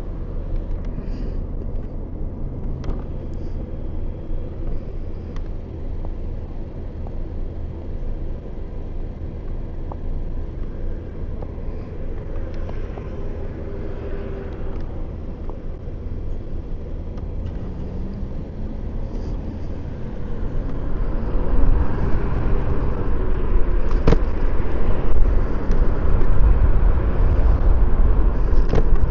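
Steady low wind rumble and road noise from riding the Yume Predator 72-volt electric scooter, growing louder about two-thirds of the way through.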